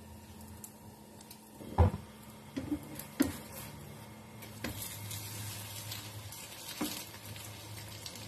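Cooking in a pan: several sharp knocks and clinks of utensils against cookware, the loudest about two seconds in, with a faint sizzle of food frying from about halfway through.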